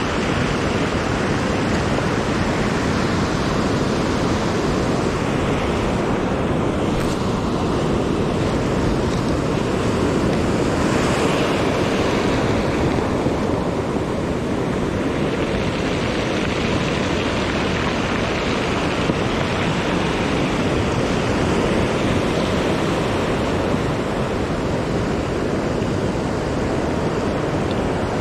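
Ocean surf breaking and washing up the shore in a steady rush of noise.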